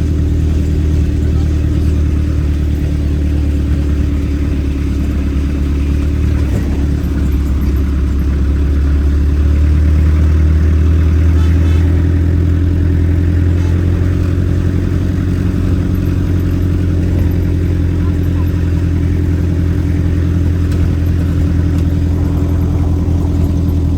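Vehicle engine running steadily under load, a loud low drone that swells slightly about halfway through.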